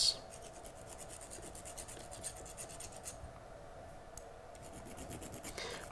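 Small flat file scraping along the metal axle of a model railway wagon wheelset in quick, faint strokes, with a short pause a little after three seconds in. The paint is being filed off the axle so that conductive paint will make good electrical contact for block detection.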